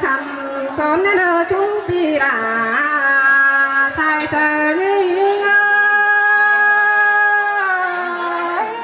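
A woman singing a melody with winding, ornamented turns in pitch, then holding one long note for about three seconds that ends near the close.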